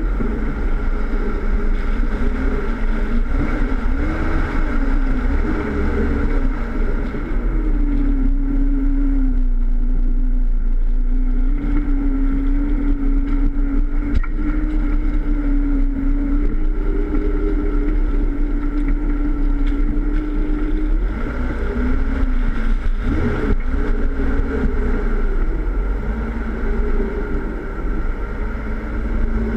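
Jeep Wrangler engine running while the vehicle crawls an off-road course, its drone rising and falling with the throttle and holding steadier for a while in the middle, over a heavy low rumble, heard from a bumper-mounted camera.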